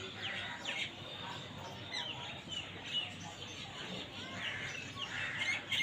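Small birds chirping faintly, a scattering of short high chirps over a low background hiss.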